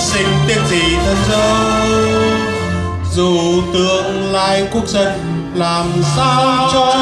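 A national anthem played over PA loudspeakers: a sung recording with instrumental backing, the voices holding long notes with vibrato.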